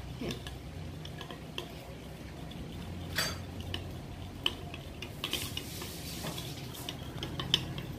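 Metal spoon clinking and scraping against a white ceramic bowl while eggs are beaten by hand, in quick, irregular taps, over a faint steady low hum.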